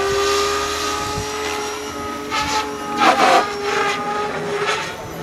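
Goblin Urukay radio-controlled helicopter in flight overhead: a steady motor and rotor whine, its pitch dipping slightly partway through. A few rushing swishes of the blades come through, the loudest about three seconds in.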